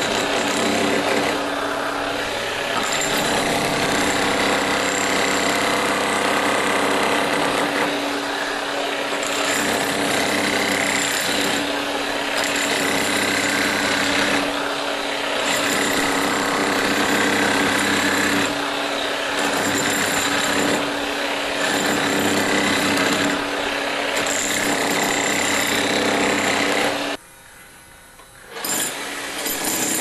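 Electric hammer drill boring into brick, running continuously with a steady motor tone over dense grinding noise that eases briefly every few seconds. It cuts out for about a second and a half near the end, then starts again.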